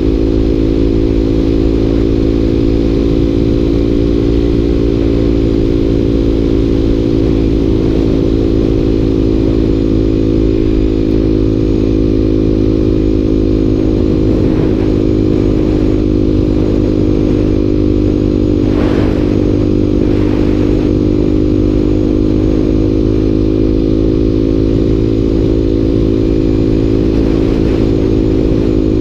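Motorcycle engine running at a steady speed under way, heard close up from the rider's position, its pitch holding nearly level throughout. A short rush of noise cuts across it about nineteen seconds in.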